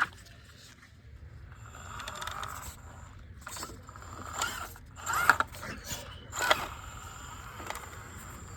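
Prophet Design Kaiju RC rock crawler climbing: a thin high whine from its electric motor and gears, with tyres and chassis scraping on rock and several sharp clacks around the middle.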